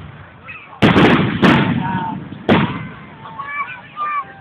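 Aerial fireworks bursting: three loud bangs in quick succession in the first two and a half seconds, each trailing off as it fades. People's voices can be heard faintly between them.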